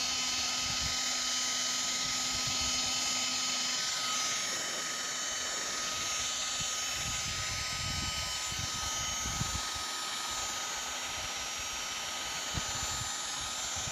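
Heat gun running on its medium setting, a steady fan whine with several fixed tones and a hiss of blowing air, as it warms and softens a refrigerator door's rubber seal. Low gusty rumbles of wind on the microphone come and go, strongest in the middle.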